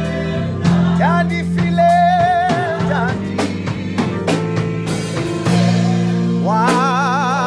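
Live gospel music: electric keyboard and drum kit with sustained low notes, under a voice singing long held notes with vibrato. Near the end the voice swoops up into a long wavering note.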